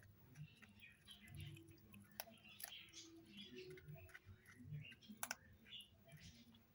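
Kittens chewing and smacking as they eat, faint and busy with small wet clicks, and two sharper clicks about two and five seconds in.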